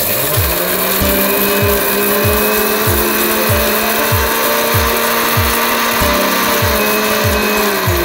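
Electric mixer-grinder (mixie) spinning up, running steadily as it dry-grinds roasted pigeon peas and dried red chillies, and winding down near the end. Background music with a steady beat runs underneath.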